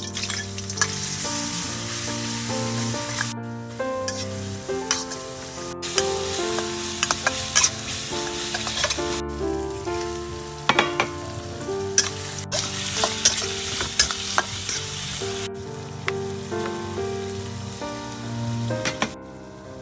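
Food sizzling and frying in a pan, with occasional sharp clicks. The sizzle breaks off abruptly several times at cuts, over background music with a stepping melody.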